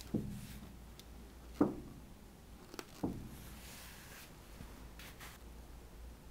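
Soft thuds of a paint-covered balloon being pressed down onto a stretched canvas, three times about a second and a half apart, the middle one the loudest, each with a brief low ring from the canvas.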